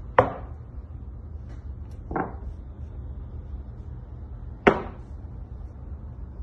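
Three sharp knocks of tailor's chalk being set down and tapped on a cloth-covered cutting table, near the start, around two seconds in (softer) and near five seconds in, over a steady low hum.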